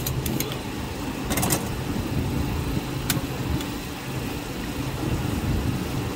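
Metal spatulas scraping and clicking against a steel ice-cream-roll cold plate as the frozen ice cream is cut into strips: a few sharp clicks, several together about a second and a half in. Under it runs a steady low mechanical hum like an idling engine.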